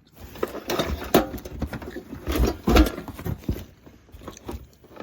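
Irregular knocks, taps and rustling as a box and its contents are handled, with the busiest stretch a little past the middle.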